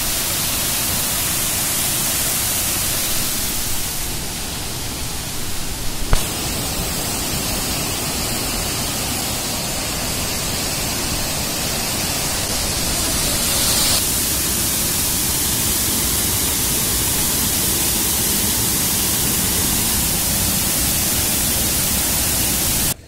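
Floodwater rushing over the steps of a weir, a steady loud rushing of falling water that shifts abruptly in tone a few times, with a short sharp click about six seconds in.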